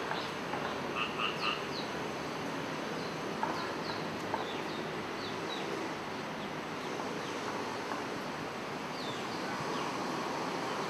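Short, high, falling animal chirps scattered every second or so over a steady background hiss of outdoor ambience.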